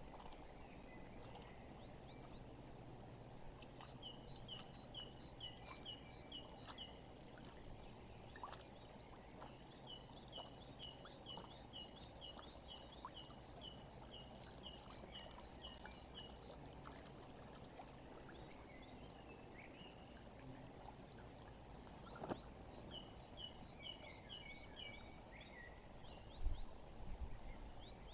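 Small songbird singing a repeated two-note phrase, a high note then a lower falling one, about two to three times a second, in three bouts of several seconds each, over a faint steady hiss.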